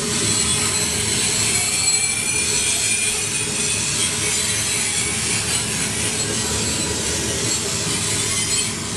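Freight train cars rolling past with a continuous rumble and a steady, high-pitched metallic squeal of wheels on the rails, strongest in the middle.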